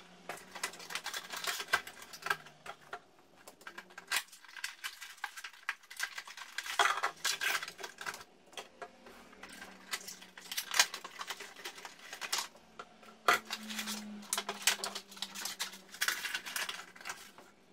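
Cardboard toy boxes being opened and their thin clear plastic trays handled: irregular crinkling, rustling and light plastic clicks.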